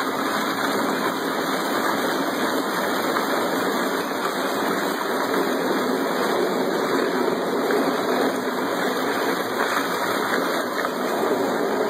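Slushy margarita and ice churning and gushing steadily in a cooler, circulated at full power by a 1¼ horsepower garbage disposal through a return feed pipe.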